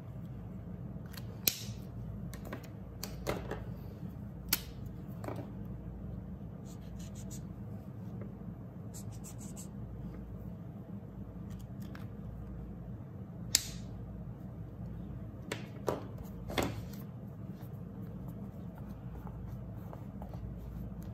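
Dual-tip marker caps clicking on and off in a few sharp snaps, between soft scratching of marker tips on paper and light paper handling, over a low steady hum.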